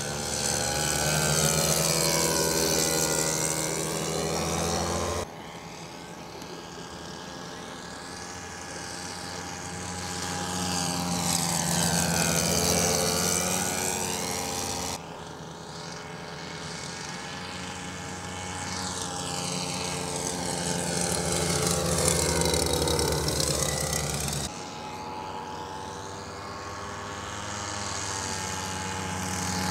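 Twin propeller engines of a large scale radio-controlled flying boat running steadily during low flypasts. The sound swells and fades with each pass, and changes abruptly about five, fifteen and twenty-five seconds in.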